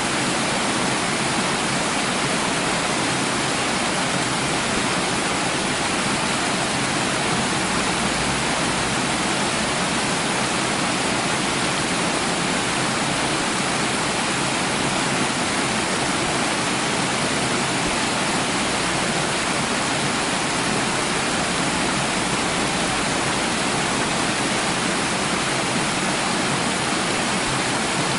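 Running water splashing steadily, an even, unbroken rush with no distinct splashes or pauses.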